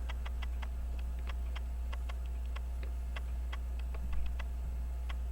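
Elgin pocket watch movement ticking fast and evenly, about five ticks a second, its balance now swinging freely. A steady low electrical hum runs underneath.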